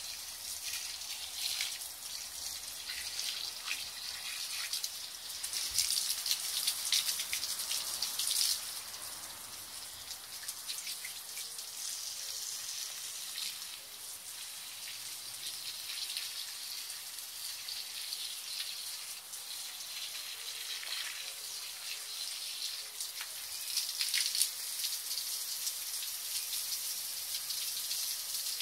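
Water from a garden hose pouring and splashing onto potting soil and leaves in flowerpots. It is a steady splashing, louder in two stretches, one a few seconds in and one near the end.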